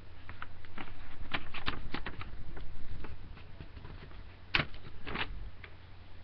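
Close handling noise: a quick run of light clicks and rustling for about three seconds, then a few louder clicks about four and a half seconds in.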